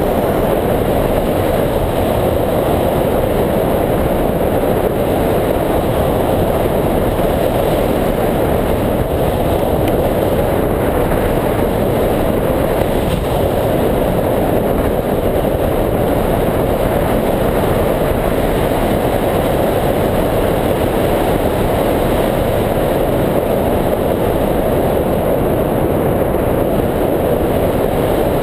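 Steady rush of airflow over a camera mounted on a hang glider's wing in flight: loud, even wind noise on the microphone that holds unchanged throughout.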